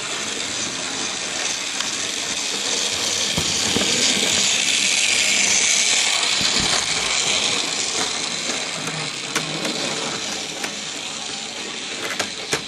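OO gauge model tank locomotive running on its track: a steady whirring hum from its small electric motor and wheels, growing louder as it passes close by about halfway through and then fading. A few sharp clicks near the end.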